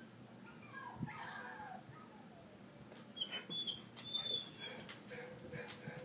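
Rottweiler whimpering and whining: a falling cry about a second in, then several short high-pitched whines and a lower drawn-out whine near the end.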